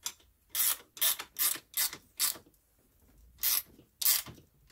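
A hand ratchet clicking in about seven short strokes, with a pause in the middle, as bolts on a rolling stool's wheel bracket are tightened by hand.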